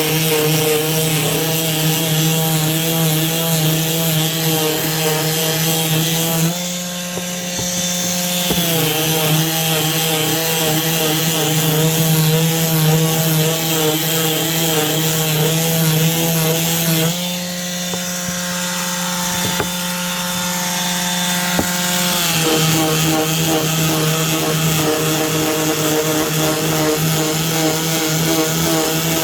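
Cordless Ryobi palm sander running at about 11,000 orbits a minute, its 220-grit paper rubbing over a rough-cut 2x4 block to smooth it. Twice, about a quarter and about two-thirds of the way through, the rubbing drops away for a few seconds and the hum goes steadier.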